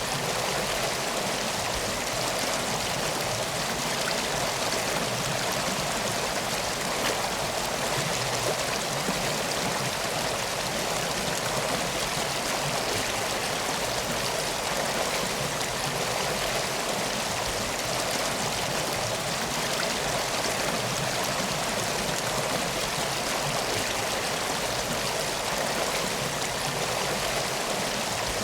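A stream of water flowing steadily, an even rushing sound with no breaks.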